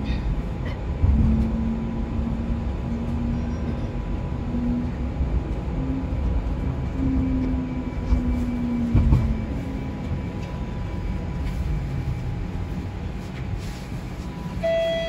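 TTC streetcar heard from inside while moving: steady low rumble of the wheels on the rails, with a motor hum that steps up and down in pitch and a couple of knocks. A short chime sounds near the end as the car comes into a stop.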